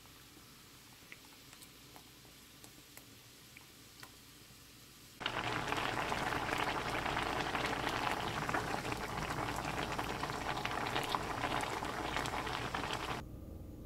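Thick spicy red sauce with glass noodles, cabbage and sausage bubbling hard in a frying pan, a dense crackling bubbling with small pops. It comes in suddenly about five seconds in, after a quiet stretch with a few faint ticks, and drops away abruptly near the end.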